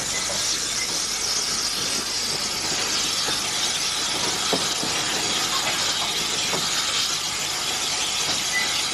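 Steady hiss of steam from an Andrew Barclay industrial steam locomotive as the train runs along the line.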